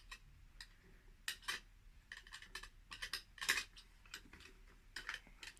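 Faint, irregular light clicks and rattles of a just-unwrapped toy being handled.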